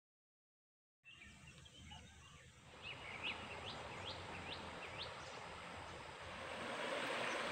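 A second of silence, then faint riverside ambience. A bird gives a run of about six quick rising chirps, and the steady rush of flowing river water grows louder near the end.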